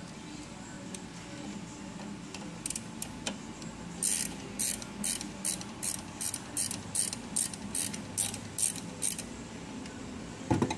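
Small ratchet wrench clicking as it is swung back and forth, about three clicks a second for some five seconds, tightening a hose clamp on a catch can's check-valve line. A single loud knock comes just before the end.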